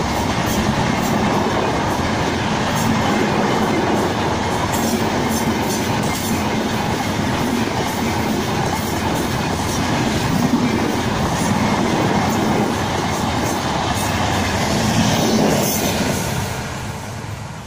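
Indian Railways passenger train's coaches rushing past at speed: a loud steady rumble of wheels on rail with sharp clacks scattered through it. The noise fades near the end as the last coach passes.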